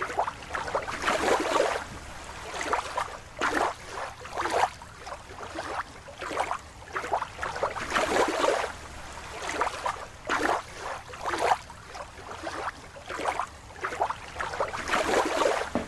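Water sloshing and splashing in irregular surges.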